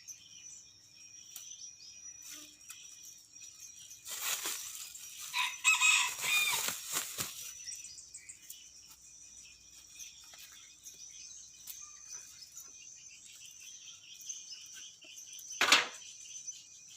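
A rooster flaps its wings about four seconds in and then crows, the crow being the loudest sound. A steady high-pitched whine runs throughout, and a short loud noise comes near the end.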